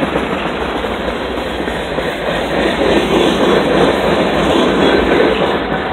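Freight train cars rolling past close by: a steady rumble and rattle of steel wheels on the rails, somewhat louder in the middle.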